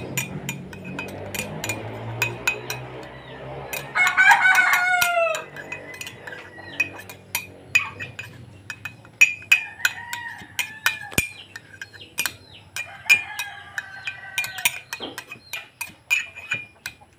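A rooster crowing, one loud crow about four seconds in that falls in pitch at the end, followed later by fainter crows or calls, over a run of light clicks.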